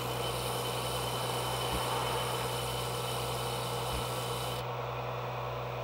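Electric disc sander running with a steady hum while a steel knife blade is pressed flat against its abrasive disc: a continuous grinding hiss as it sands out the scratches left by a 2x72 belt grinder. About four and a half seconds in, the blade comes off the disc and the hiss stops, leaving only the motor hum.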